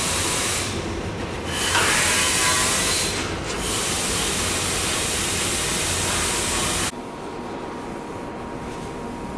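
Compressed air hissing from an air gun in a body shop, in three spells with two short breaks, cutting off suddenly about seven seconds in.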